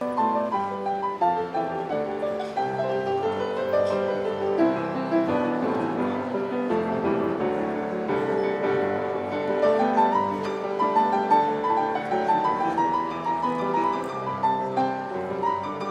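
Background music led by piano, with a quick run of notes.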